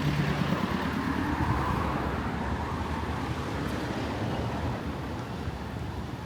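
Steady road traffic: cars passing on a busy street, a continuous mix of engine and tyre noise that eases a little after about five seconds.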